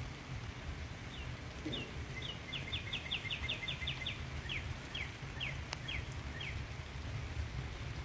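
A songbird singing a phrase of short down-slurred whistled notes that quicken into a fast run and then slow again, over the steady hiss of light spring rain and a low rumble.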